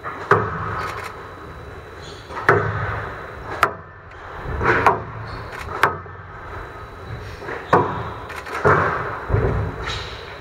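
Squash rally: the ball cracking sharply off rackets and court walls about eight times, one to two seconds apart, each hit ringing briefly in the hall.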